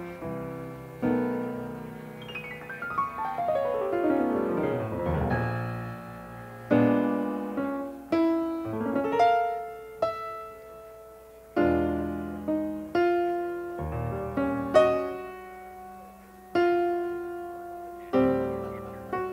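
Background piano music: single struck notes and chords that ring and fade, with a fast falling run of notes about three to five seconds in.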